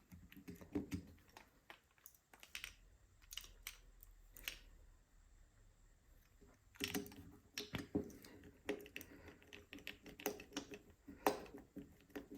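Faint, irregular small metal clicks and taps of needle-nose pliers gripping and working at a stuck needle in a crusty small-engine carburetor. The clicks come thicker from about seven seconds in.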